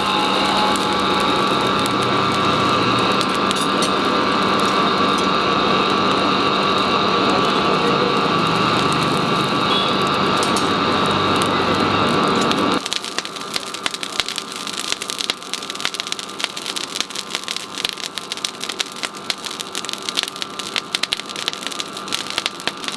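A coal forge fire blown hard by an air blower gives a loud, steady rushing hum with a few held tones. About 13 seconds in it cuts abruptly to the quieter, dense crackling and popping of the burning coals.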